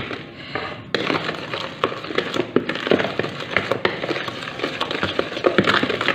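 A utensil beating a loose batter in a plastic bowl, knocking against the bowl in a fast, irregular run of clicks and wet knocks.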